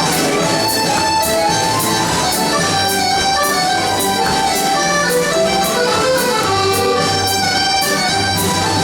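Scottish country dance band music: accordion carrying a lively tune over a steady, even drum beat.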